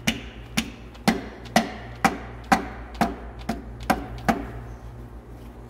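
Rubber mallet tapping a piston down into a cylinder bore of a Caterpillar 3406B diesel engine block: about ten even taps, two a second, stopping a little past four seconds in.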